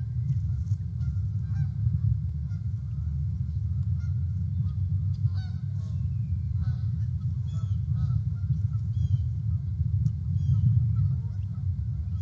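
Scattered short bird calls, many of them, over a steady low rumble.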